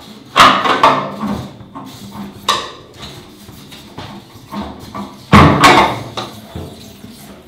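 A floor tom of a drum kit struck with two drumsticks: a handful of loud, irregular hits that ring after each one, with the loudest pair close together about five and a half seconds in.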